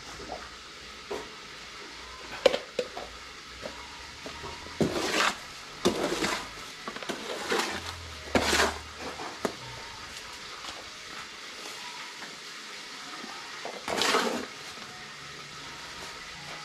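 Scattered scraping and knocking of work tools: a sharp knock about two and a half seconds in, then several short scrapes, the last and one of the loudest near the end.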